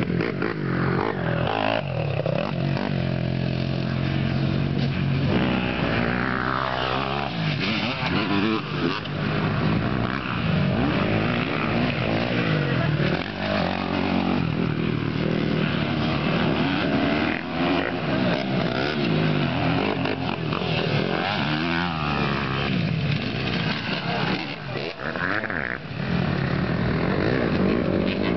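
Motocross dirt bike engine revving, its pitch repeatedly climbing and dropping as the throttle is opened and closed.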